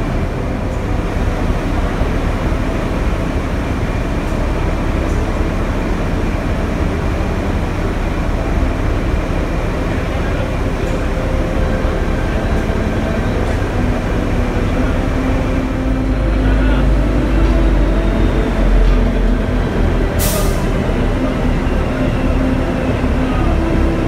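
Rail vehicle running through a tunnel: a steady, loud rumble of engine and wheels that grows heavier for a few seconds past the middle, with a short sharp hiss of air about 20 seconds in.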